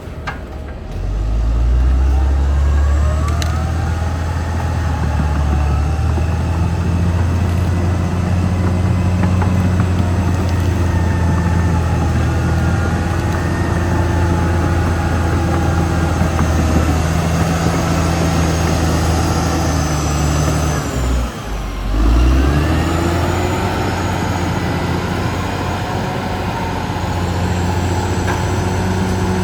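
Caterpillar D6R XL bulldozer's diesel engine running hard, revving up about a second in, dropping briefly about two-thirds of the way through and then climbing back.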